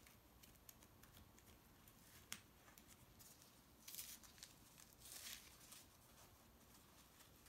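Faint crinkling and rustling of white wrapping being pulled off a small miniature, in two short bursts about four and five seconds in, with a few light clicks before them.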